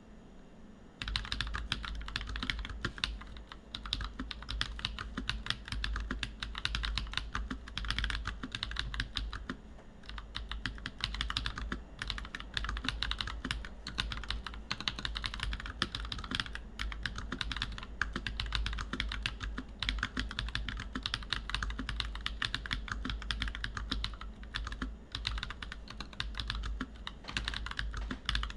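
Steady, fast typing on a plateless DISCIPLINE V2 65% custom mechanical keyboard with lubed NovelKeys Blueberry tactile switches, a continuous run of keystrokes that starts about a second in.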